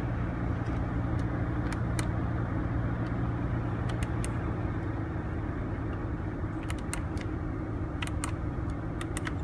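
Audi car running steadily at idle with its air conditioning on: an even hum with a rushing of air, and light ticks here and there.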